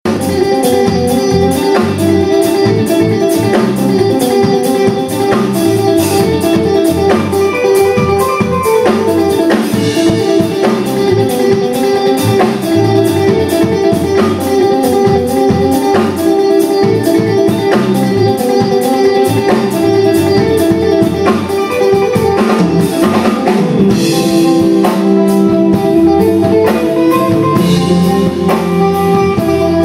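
Live electric band playing loud: electric guitar over bass guitar and a drum kit keeping a steady beat.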